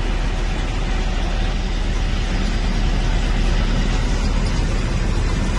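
Truck engine idling, heard from inside the cab: a steady low rumble with an even hiss over it.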